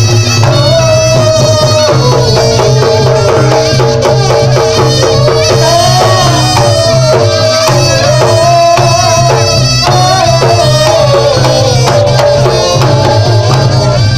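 Loud Reog Ponorogo gamelan music: a shrill slompret reed trumpet plays a wavering, sliding melody over rapid kendang drum strokes and a steady low accompaniment.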